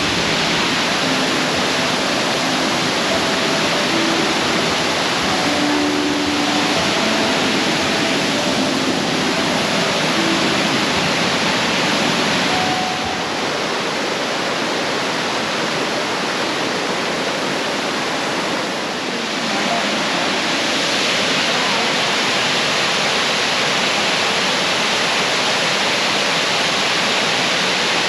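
Waterfall's rushing water, a dense steady roar that dips slightly about halfway through and then comes back up.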